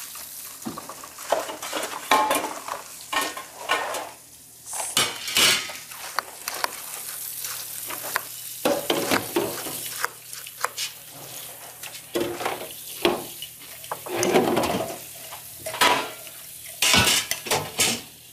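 Dishes, pots and cutlery clattering and clinking irregularly as they are washed and handled at a kitchen sink and counter.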